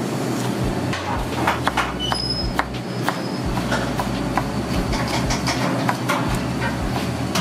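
Chef's knife slicing peppers on a plastic cutting board: a string of quick, irregular knocks as the blade hits the board, over a steady low rumble.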